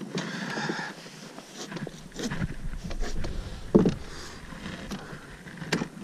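Minn Kota bow-mount trolling motor being raised and stowed on the boat's deck: a few sharp knocks and clunks of its shaft and mount, the loudest a little past halfway and another near the end.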